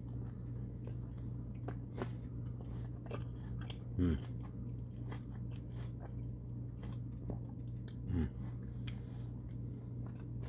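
A man chewing a mouthful of soft tortilla wrap close to the microphone: small wet clicks and smacks of chewing, with two short hums from the mouth, falling in pitch, about four seconds apart. A steady low hum runs underneath.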